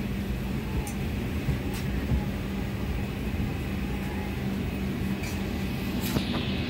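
Steady hum inside an airliner cabin after landing, with a low drone, and a few light clicks and a knock about six seconds in.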